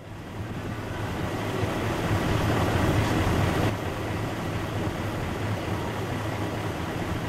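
Snowcat running steadily with a low engine rumble and a rushing noise, fading in at the start and easing off slightly about three and a half seconds in.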